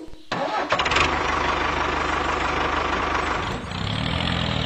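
Tractor engine running steadily with an even low pulsing. It cuts in just after the start and takes on a lower, more clearly pitched note past three and a half seconds.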